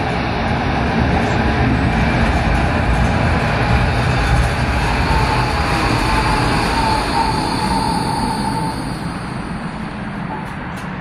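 Bombardier Flexity Classic light-rail tram pulling into the platform and braking to a stop: a steady rumble of wheels and running gear that eases off towards the end. A thin whine comes in about halfway through, slides slightly down in pitch, and fades out a couple of seconds before the end.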